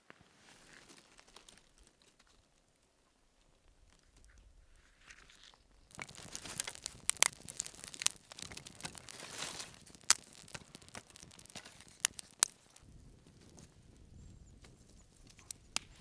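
Small fire of dry twigs catching and burning: a rush of flame with sharp crackles and pops, loudest from about six to ten seconds in, then settling to a few scattered pops.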